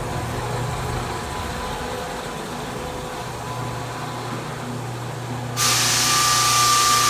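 Floor sander running steadily with a low hum and a faint steady whine. About five and a half seconds in it suddenly gets louder, turning to a bright, hissing rush with a higher steady whine.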